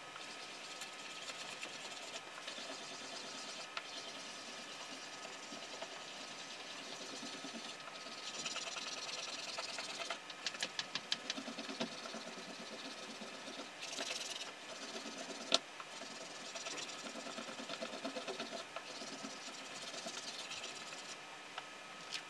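Paper being rubbed by hand against an inked oak woodcut block to take a relief print: a continuous papery scraping hiss, with spells of quick back-and-forth strokes about halfway through and again near the end.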